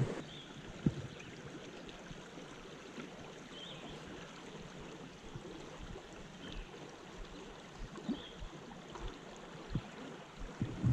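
Shallow creek water running steadily over a riffle, with a few soft thumps scattered through it and several brief high chirps a couple of seconds apart.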